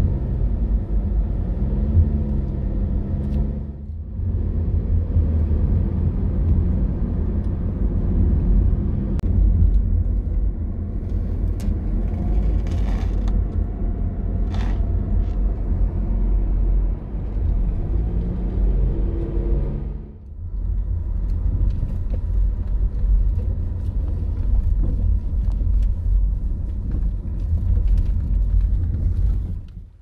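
Honda BR-V cabin noise while driving: a steady low rumble of engine and tyres on the road. The engine note shifts in pitch about two seconds in and again about two-thirds of the way through.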